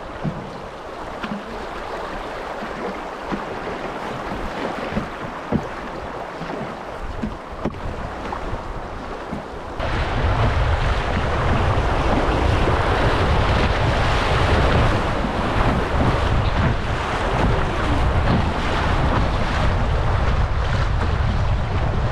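River water rushing and splashing past a canoe, quieter at first, then stepping up suddenly about ten seconds in to a louder rush as the canoe runs a rapid. From that point wind buffets the microphone with a low rumble.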